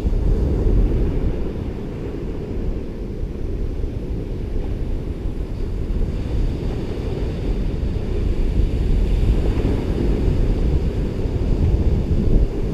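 Ocean surf on a beach under heavy wind rumble on the microphone, with a wave hissing a little louder about nine seconds in.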